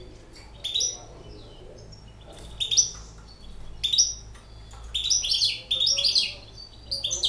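Young caged hybrid finch singing in short bouts of quick, sharp, high chirps, busiest a little past the middle.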